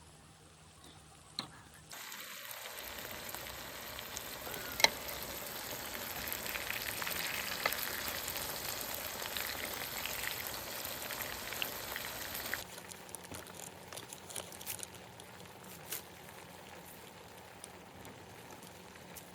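Food sizzling and spitting in a hot pan. It starts abruptly about two seconds in and drops suddenly to a fainter crackle after about twelve seconds, with one sharp pop along the way.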